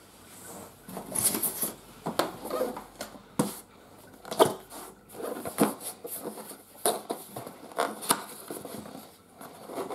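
Cardboard being handled: a carton flap and a smaller cardboard box lifted and slid out of a larger packing box, with irregular scrapes, taps and rustles.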